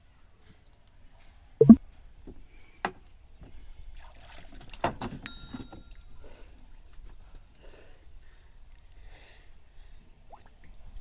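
Water sloshing and splashing as men wade and work beside a wooden boat, with a loud thump a couple of seconds in, a smaller knock a second later, and a cluster of splashes near the middle.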